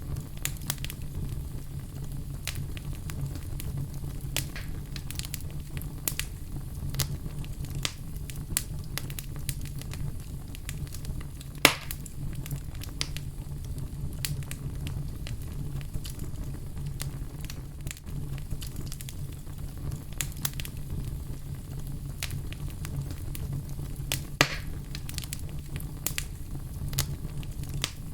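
Fire crackling in a fireplace: many small sharp pops and snaps over a steady low rumble. Two louder pops stand out, one near the middle and one about three-quarters through.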